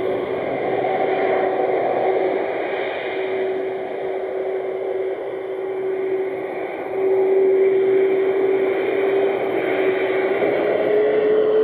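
Airbus A300 freighter's jet engines at low taxi power: a steady whine over a rushing noise. It gets louder about seven seconds in, and near the end the whine begins to rise in pitch as the engines start to spool up.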